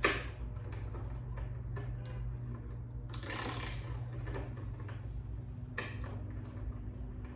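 Small metal docking-hardware pieces clicking and tapping as they are handled and fitted onto a motorcycle's mounting bolt, with a brief scraping rustle about three seconds in and another near the end.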